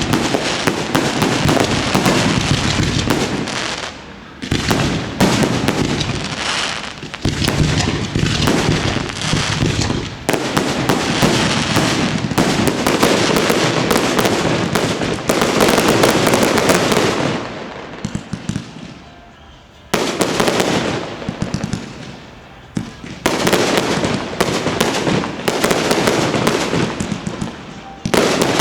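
Fireworks display: dense volleys of overlapping bangs and crackling, easing briefly about four seconds in and again for a couple of seconds past the middle before building back up.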